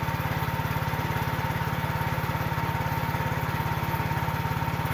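Engine of a Sanchin power sprayer running steadily at constant speed with a fast, even throb, driving the pump that feeds the hose and spray lance.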